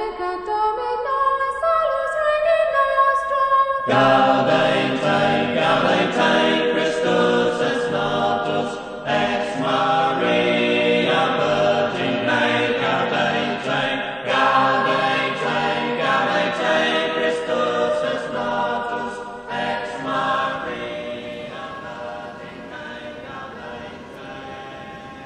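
Choral music: a single high voice singing, joined about four seconds in by a full choir, which fades out near the end.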